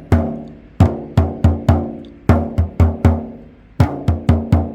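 Cheap 10-inch shamanic frame drum struck repeatedly in short rhythmic groups, about fourteen hits. Each hit gives a deep, warm thud that rings on and decays slowly.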